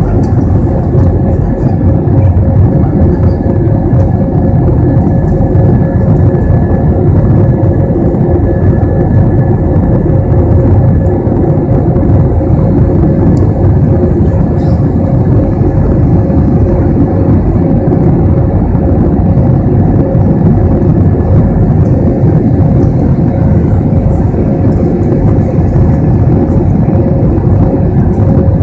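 Steady in-cabin noise of an Airbus A321 climbing after takeoff, heard from a window seat over the wing: the engines' loud drone mixed with the rush of air, with a steady mid-pitched hum running through it.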